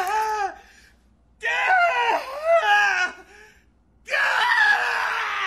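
A young man screaming in pain three times, each cry wavering up and down in pitch, with a second or so of quiet between them: yelps from being bitten and clawed by a rat under his shirt.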